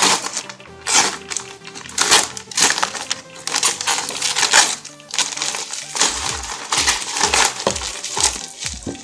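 Brown paper wrapping and packing tape being torn and crumpled off a parcel, in rough bursts about once a second. Music plays underneath, with a low beat coming in about two times a second from around six seconds in.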